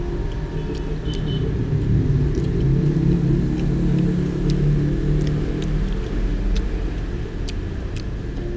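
Low engine and traffic rumble that swells in the middle as a vehicle passes, with a few light clicks of a metal spoon against the plate.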